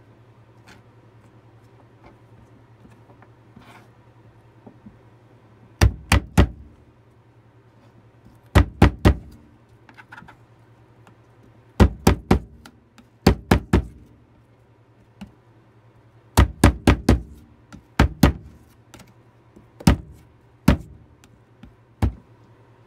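Chef's knife chopping peeled fresh ginger on a plastic cutting board: quick runs of two to four sharp knocks, repeated in bursts starting about six seconds in.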